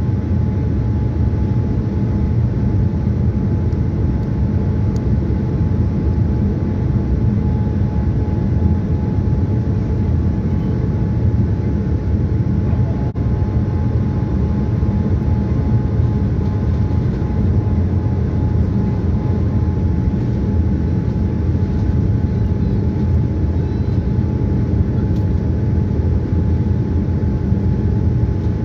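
Steady cabin noise inside a Boeing 787-9 airliner on final approach, flaps fully extended and landing gear down: a low, even rush with a faint steady tone running through it.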